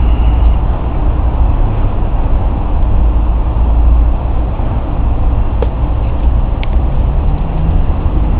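Loud, steady low rumble of outdoor background noise with a faint hiss above it, and two faint short ticks about six seconds in.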